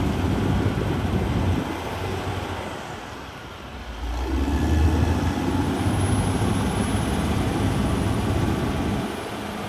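Caterpillar D6R XL bulldozer's diesel engine running under load, with a low steady drone. It eases off about three seconds in, then picks up and runs harder again from about four seconds in.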